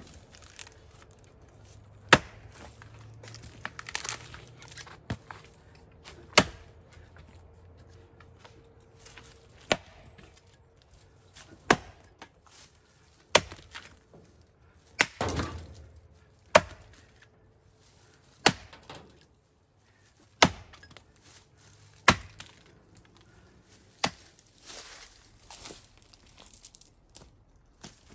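Axe blows chopping into the trunk of a standing tree being felled, one sharp chop about every two seconds, about a dozen in all, ending a few seconds before the end.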